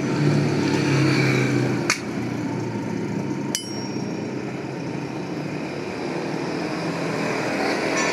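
Two sharp metallic knocks from a farrier's hand tools during hoof work, about a second and a half apart, the second ringing briefly. They sit over a steady background rumble.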